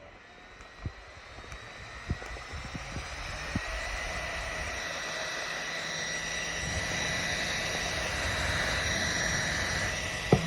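GKT portable mini fan running up to speed: a motor whine and rush of air that rise in pitch and grow louder over the first few seconds, then hold steady. A few light clicks in the first four seconds, and a knock near the end.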